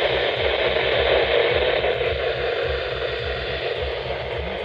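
Steady radio static hiss from a weather radio receiver, with a low irregular rumble underneath.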